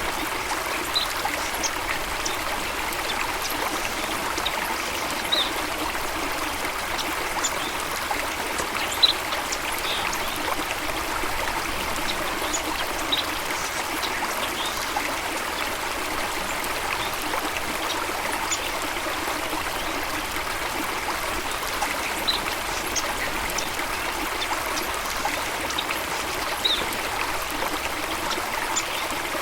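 Running water flowing and trickling steadily, like a small stream or waterfall, with a few short high-pitched sounds scattered through it.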